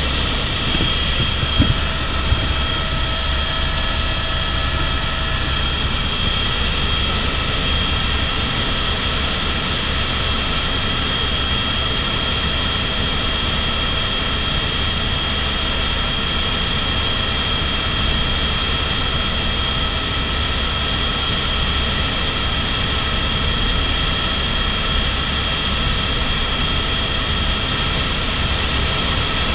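Airbus H125 (AS350 Écureuil) helicopter in cruise heard from inside the cabin: a steady high turbine whine over a low, constant rumble from the rotor and engine, with two brief clicks about two seconds in.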